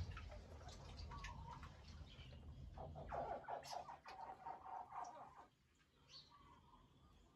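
Faint, thin chirping calls from a crowd of hatchling crocodiles, some calls held for about a second, with small scattered clicks. The sound drops out briefly a little after five seconds.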